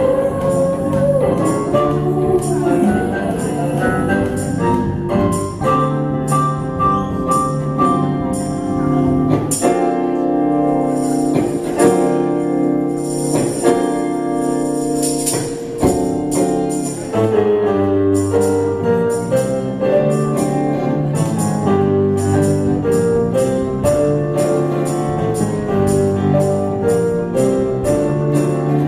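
A band playing an acoustic arrangement of a rock song, with pitched instruments changing notes over a steady percussive beat.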